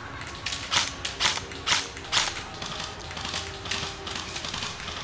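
Airsoft electric rifle firing several single shots in quick, uneven succession over the first couple of seconds, each a short mechanical snap from the gearbox. Quieter clicking and background music follow.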